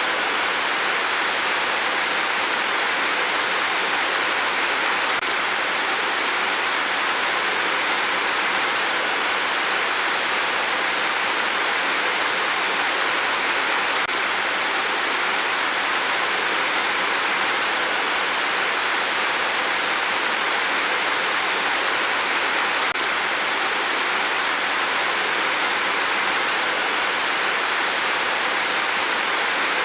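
Rain falling steadily: an even, unbroken hiss with no gusts or pauses.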